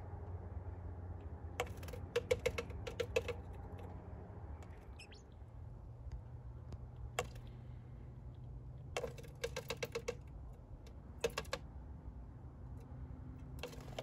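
A small bird pecking at a pickup truck's side window glass with its beak: several runs of quick, sharp taps, with a single tap between them.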